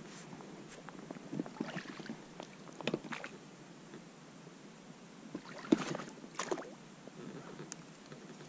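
Oars of a small inflatable pontoon boat working in the water: a few short splashy strokes and knocks, the loudest about six seconds in.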